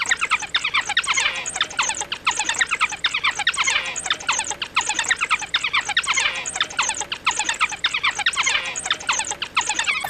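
African wild dogs (painted dogs) twittering: many short, high-pitched chirps and squeals from several animals, overlapping in a rapid, unbroken chatter.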